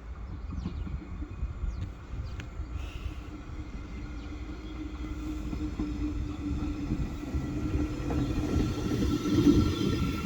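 An approaching train rumbling, with a steady hum, growing louder as it nears and loudest just before the end.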